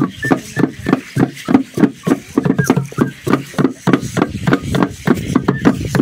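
Drum beaten in a fast, steady dance rhythm, about three to four strikes a second.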